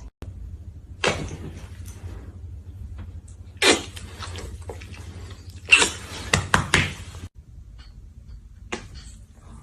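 Short cracks and knocks from a dog's neck being manipulated: one about a second in, a louder one near the middle, and a quick run of several between six and seven seconds in, over a steady low hum.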